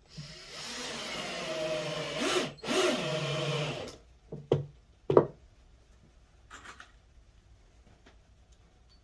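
Milwaukee M18 cordless drill/driver driving a screw through the drawer box into the drawer face, in two runs of about two seconds and one second with a brief pause between, the motor pitch rising and falling as it loads. A couple of sharp knocks follow, about a second after the driver stops.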